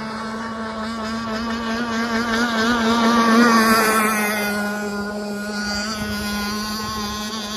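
RC catamaran's Zenoah G23 two-stroke petrol engine running at high speed on the water, growing louder as the boat passes close about three seconds in. Its pitch drops as it goes by, then it runs on steadily as it heads away.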